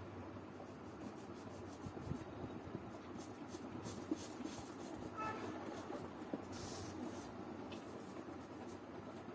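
Felt-tip marker rubbing back and forth on paper as an area is coloured in, in many short strokes.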